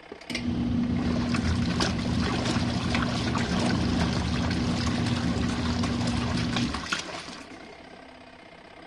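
RV washing machine in its wash cycle: the motor starts with a click and hums steadily while the agitator churns the clothes and warm water with a sloshing sound. It stops about seven seconds in, the pause in the wash cycle's on-off agitation.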